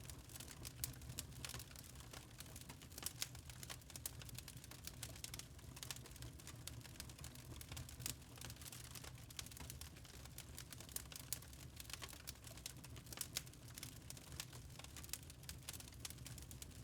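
Wood fire crackling in a fireplace: irregular small pops and snaps, several a second, over a low steady rumble of the flames.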